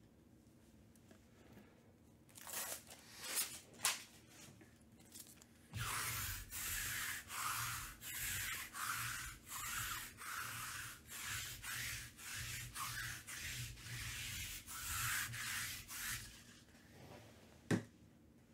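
Hands rubbing and scraping on trading-card box packaging in a steady run of strokes, about two a second, after a few scattered scuffs. A single sharp click near the end.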